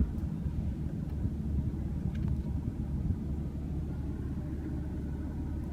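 2016 BMW M3's twin-turbo straight-six idling, a steady low rumble heard inside the cabin.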